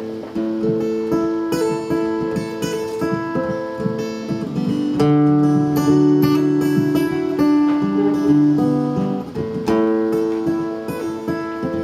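Acoustic guitar played as a song's instrumental intro, picked and strummed in steady chords.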